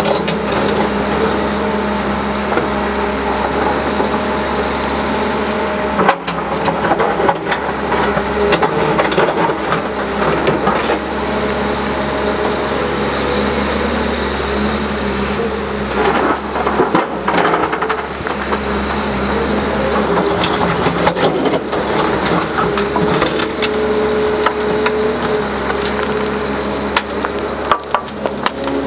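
Hyundai R320LC-9 crawler excavator digging: its diesel engine and hydraulics run steadily under load while the bucket tears through stony ground and tree roots, with scattered knocks of rock and cracking of roots.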